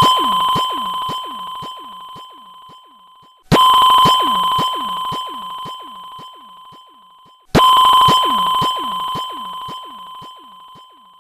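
A bell-like tone struck three times, about four seconds apart, each ringing out and fading slowly with a quick pulsing inside the ring.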